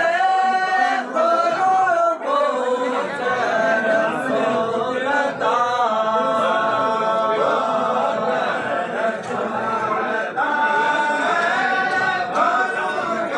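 A group of voices singing together unaccompanied, in long held notes that bend between pitches.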